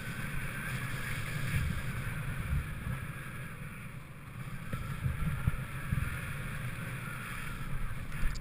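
Wind buffeting a helmet-mounted camera's microphone while a BASE jumper glides under an open parachute. It is an uneven, gusty noise that sits mostly low.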